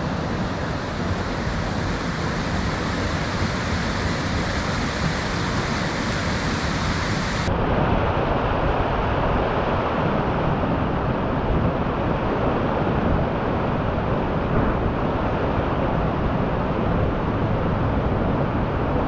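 Steady rush of water in heavy rain. About seven and a half seconds in it changes abruptly, losing its high hiss, to the fuller rush of a rain-swollen stream and small waterfall tumbling over boulders.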